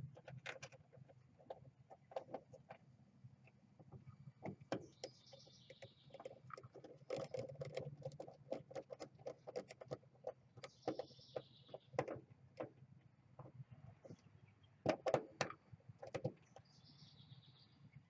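Light, irregular clicks and scrapes of a screwdriver and wires as terminal screws on an air-conditioner condenser's contactor are tightened down, with a bird calling faintly three times.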